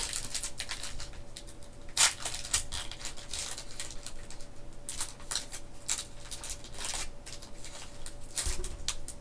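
Foil booster-pack wrapper crinkling and tearing as it is opened, in an irregular run of short crackly rustles.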